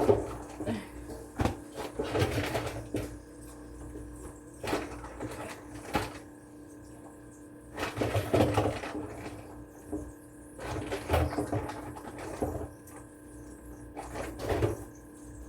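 Kitchen handling sounds: scattered knocks and clatter with short rustling spells, over a steady low hum.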